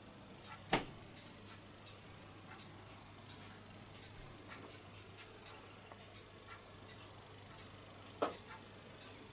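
Faint, irregular light ticks and clicks, with two sharper clicks, one about a second in and one near the end, over a low steady hum.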